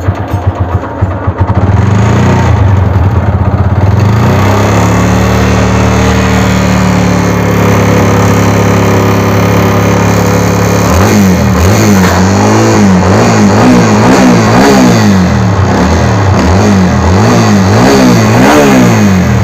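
TVS Apache RTR 200 4V single-cylinder motorcycle engine running: its revs rise in the first few seconds and hold steady, then from about eleven seconds in the throttle is blipped repeatedly, about once a second. The engine makes a jingling rattle like ghungroo bells, which the mechanic takes for a seized piston.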